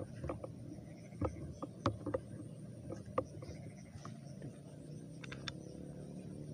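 Irregular soft clicks and knocks of footsteps and handling noise as a handheld phone on a gimbal is carried forward, over a faint steady high-pitched drone.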